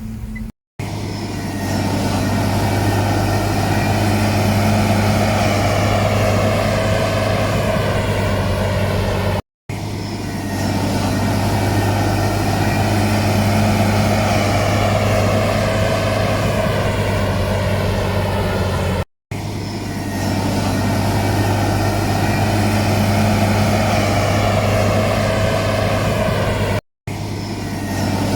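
Heavy diesel engine of earthmoving machinery running hard under load, a deep steady drone with its pitch slowly shifting. It breaks off abruptly three times and picks straight up again.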